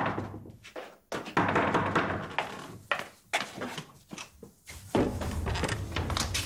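A string of sharp thunks and knocks from a man moving about a room and working a heavy wooden door open; the door opens about five seconds in, followed by a steady low rumble.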